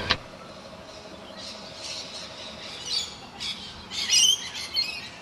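Birds squawking in a series of loud, harsh high calls, loudest about four seconds in. A sharp double click at the very start, where the recording cuts in.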